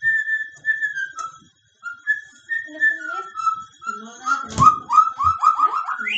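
White-rumped shama singing a string of clear whistled notes, some held and some gliding. Near the end it breaks into a quick run of repeated down-slurred notes, about six a second. Two dull thumps fall during that run.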